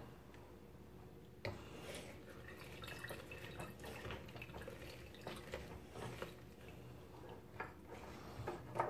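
Lemon being squeezed by hand, its juice dripping and trickling into a bowl of liquid: faint scattered drips and small ticks, with one sharper tick about a second and a half in and a few more near the end.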